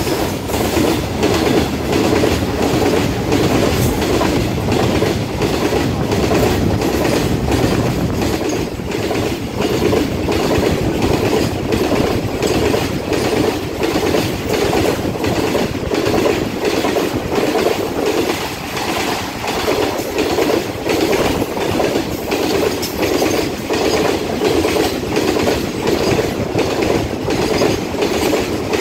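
Goods train of tank wagons passing close alongside on the adjacent track, heard from a passenger coach: a loud, steady rumble of wheels on rail with a regular clickety-clack, about two knocks a second.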